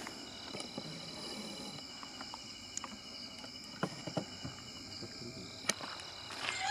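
Crickets chirring steadily, a few high even tones held together, with scattered faint clicks and rustles.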